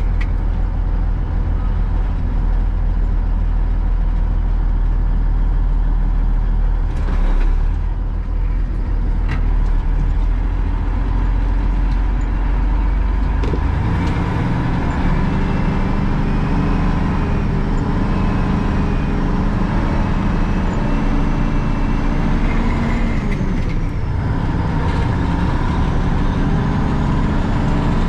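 Old Ford Louisville grain truck's engine running under a heavy load of soybeans, heard from the cab. About halfway through, the engine note changes to a higher pitch.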